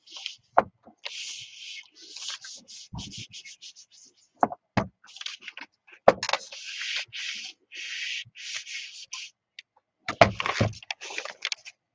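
Steam iron sliding back and forth over paper: a quick run of short scraping rubs, with a few dull knocks as the iron and paper are handled, the heaviest of them about ten seconds in.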